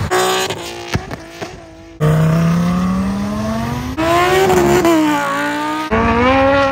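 Several cars accelerating hard past on a road, one after another in short clips that cut about every two seconds, among them a Lamborghini Huracán and a mid-engine Corvette. Engines rev up through the gears, one with a long rising pitch and another high-revving with a quick shift in the middle.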